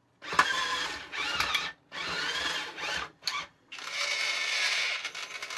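Small electric motor and plastic gearbox of a toy remote-control skid steer loader whirring in bursts, starting and stopping four times, the last burst the longest.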